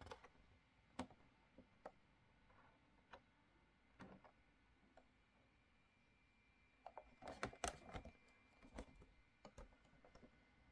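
Faint handling noise from a boxed action figure's cardboard-and-plastic packaging: scattered light clicks and taps, with a busier cluster about seven to eight seconds in.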